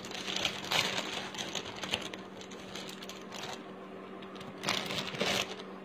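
Light clicking and rustling of costume jewellery and plastic packets being handled on a table, with a louder rustle near the end, over a faint steady hum.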